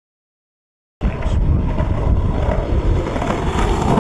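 Silence for about a second, then skateboard wheels rolling over rough asphalt: a steady, loud, low rumble.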